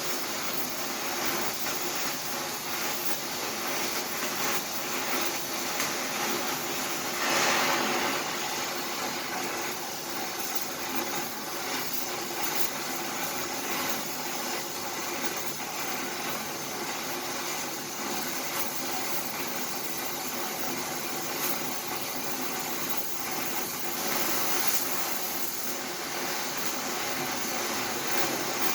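Welding arc crackling and hissing steadily, with a brief louder surge about seven seconds in.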